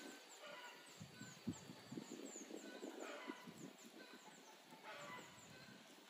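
Faint chirping of small birds: many quick, high, falling chirps overlapping, with a lower, longer call three times, about half a second, three seconds and five seconds in. Low thumps of wind or rustling run underneath.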